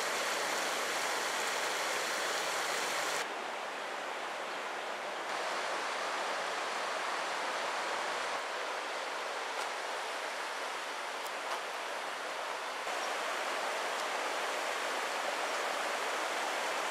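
Shallow river rushing over rocks and stones: a steady rush of water that steps abruptly a little quieter or louder a few times.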